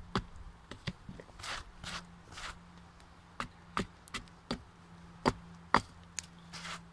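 Hand axe chopping into the side of a rotten pine log: a series of irregular, sharp chops, the loudest two coming close together about five and a half seconds in.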